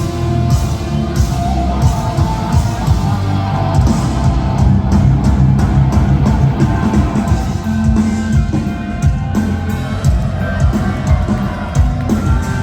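Live metal band playing: electric guitar over bass and a drum kit, with steady drum hits throughout.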